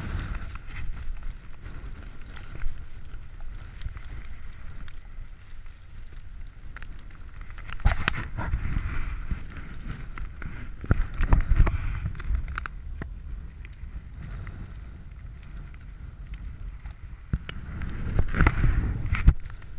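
Mountain bike ridden through snow in a storm: a steady low wind rumble on the camera's microphone with clicks, knocks and rattles from the bike. It grows louder in three stretches, about 8, 11 and 18 seconds in.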